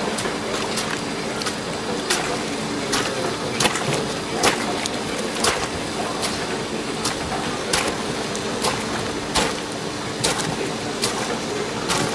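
Steady mechanical hum over a hiss, with sharp clicks or knocks about once or twice a second at uneven spacing.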